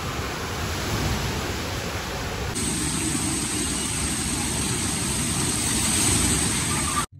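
Water rushing and splashing at a splash-pad play structure, where spray jets arc and a large tipping bucket pours out. It is a steady rush of falling water that cuts off suddenly near the end.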